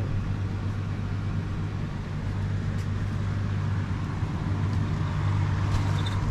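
A car driving: a steady low engine drone with road noise.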